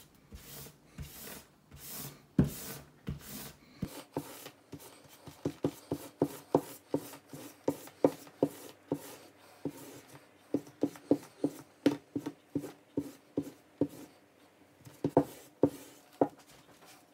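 A bar of green stropping compound rubbed hard along a buffalo-hide leather strop, loading it with compound. A few longer scraping strokes come first, then quick short strokes, about three a second, each a dry scuff.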